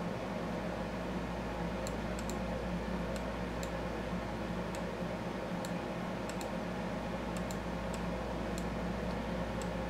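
Scattered computer mouse clicks, single and in quick pairs at irregular intervals, over a steady low electrical hum.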